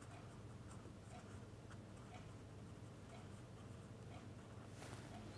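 Near silence: a faint steady hum with soft, faint ticks of a marker pen writing on paper.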